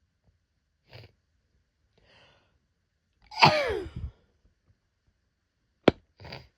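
A woman's hay fever sneeze: two short breaths in, then one loud sneeze whose voice falls in pitch. A sharp click follows, then another short breath.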